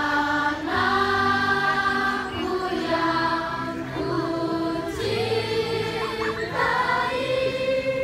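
Group of voices singing a slow song in long held notes, led by a woman's voice through a microphone, with the students singing along.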